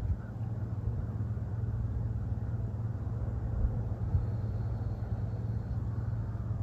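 Steady low outdoor rumble, with a couple of faint soft bumps about three and a half and four seconds in.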